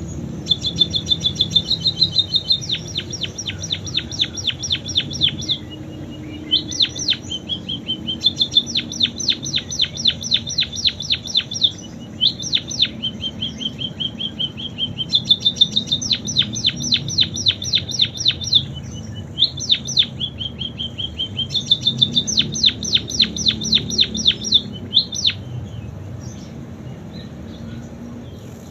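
A pipit singing canary-style song it has learned from canaries. It runs fast trills of sharp, descending notes, about eight a second, in phrases a few seconds long, linked by short held notes, and stops about 25 seconds in.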